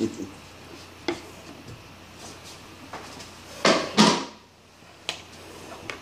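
Kitchen clatter: a few light clicks, then a cutting board knocked down twice in quick succession on the counter, the loudest sounds here, followed by a couple of faint clicks.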